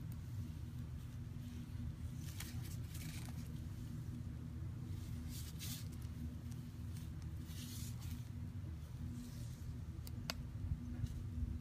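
Mixed-hair calligraphy brush dragging across rough, crisp bamboo-fibre gasenshi paper: a few faint dry scratchy swishes as strokes are made, over a steady low hum. Two light sharp ticks near the end.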